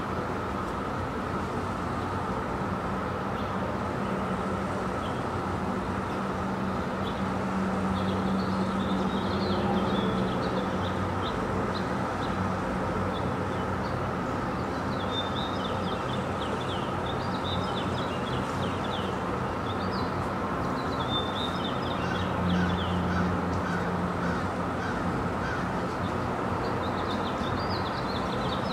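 Outdoor dawn ambience: birds calling in short, chattering clusters several times over a steady low hum of distant road traffic, which swells briefly twice.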